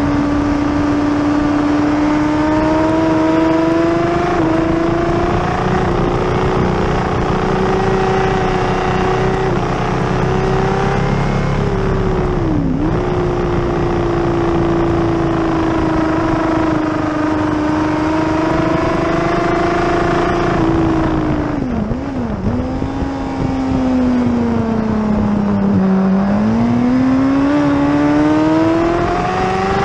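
Suzuki sport bike engine at racing speed, recorded on board: the engine note climbs steadily, drops sharply for quick downshifts about a third of the way in and again around two-thirds in, sinks through a corner, then rises again as the bike accelerates out. Wind noise runs underneath.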